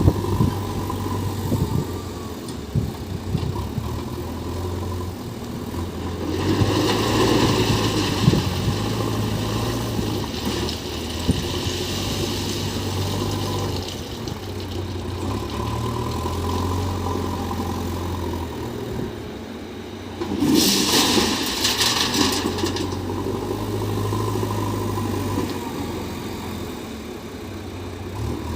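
JCB 3DX backhoe loader's diesel engine running steadily while it works, with two louder surges of rushing noise, one about seven seconds in and one about twenty-one seconds in.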